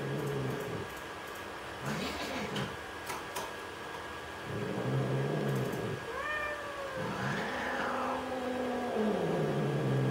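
Domestic cats in a face-off, giving a series of low, drawn-out yowls and growling moans, with a higher rising call about six seconds in and a long moan that slides down in pitch near the end: the warning caterwaul of a tense standoff between two cats.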